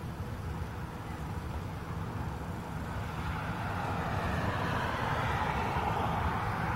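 Boeing 737-800 jet on final approach, its CFM56 engines heard as a broad rushing noise that grows steadily louder from about halfway through, over a steady low rumble.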